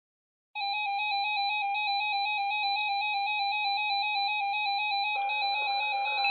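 Weather radio alert alarm: a steady, slightly warbling electronic tone starts about half a second in. A second, quieter alarm tone joins near the end, as another weather radio starts alerting.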